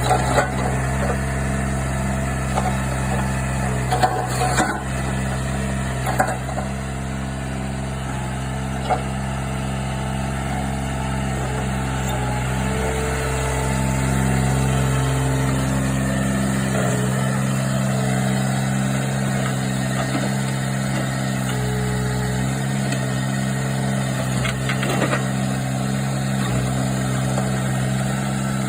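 Kubota KH-15 mini excavator's diesel engine running steadily at idle, with a few sharp knocks or clanks scattered through, two of them close together about four seconds in.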